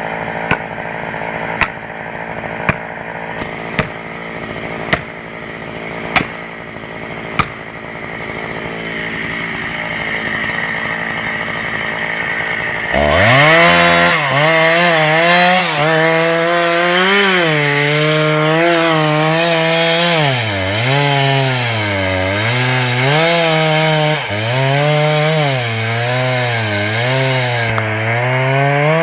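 Two-stroke chainsaw running at high revs from about 13 seconds in, its pitch repeatedly dipping and recovering as it bogs down under load in the cut. Before that there is a steady noise with sharp clicks about once a second.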